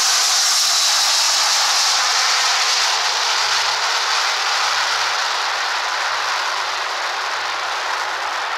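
Jet aircraft engines at takeoff: a loud rushing noise that slowly fades, with a high whine falling in pitch early on.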